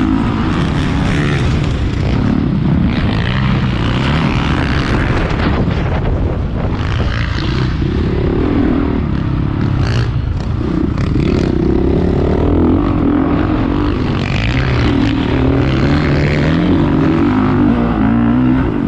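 Motocross bike engine at race pace, heard from the rider's own on-board camera, its pitch rising and falling again and again as the throttle opens and closes through the corners and straights.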